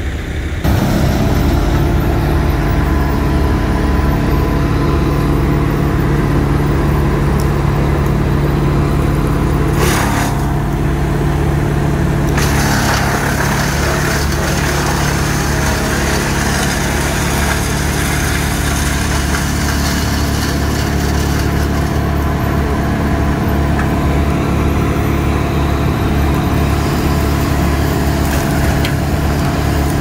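Tow-behind brush chipper's engine running steadily at high speed, with a harsher grinding rush through the middle as branches are fed in and chipped.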